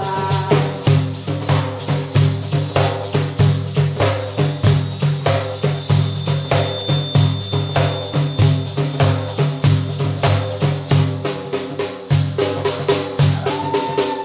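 Def, a large frame drum with metal jingles, played by hand in a steady rhythm: deep thumps of the skin with the jingles ringing on every stroke.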